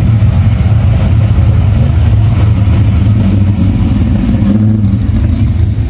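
A car engine idling steadily, loud and low-pitched.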